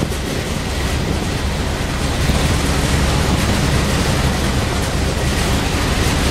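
Steady low rumble of a vehicle under way, with a hiss of wind noise over the microphone.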